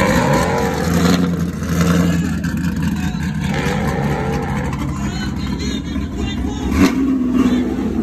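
Sixth-generation Chevrolet Camaro's engine running at low revs through its exhaust as the car creeps past, with a short sharp rise in engine sound near the end.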